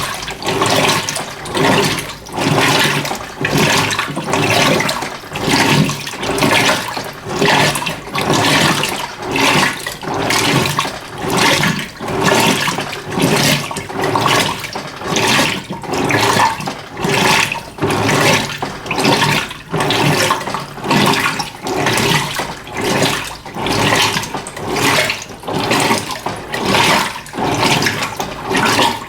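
Electrolux LF90 washing machine agitating a load of rugs in a low water level: water sloshes in even surges about once a second, over a steady motor hum.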